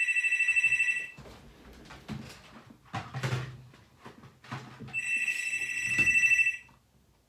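Office phone ringing with a trilling two-tone ring: one ring ends about a second in, and a second ring comes about five seconds in and lasts nearly two seconds. Between the rings there are rustling and a few knocks.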